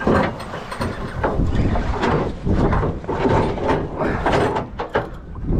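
Wind buffeting the microphone on a small boat at sea, in irregular gusts, mixed with the rustle and clunks of a fishing rod and spinning reel being handled.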